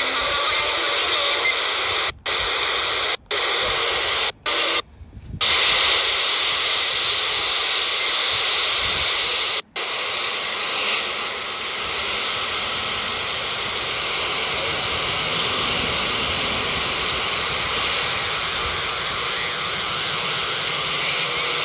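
Scanner receiver on 27.255 MHz AM giving a steady harsh hiss of radio-control data bursts. The hiss cuts out to silence several times in the first half: brief gaps near two, three and four seconds in, a half-second gap near five seconds, and a last one near ten seconds. After that it runs on unbroken.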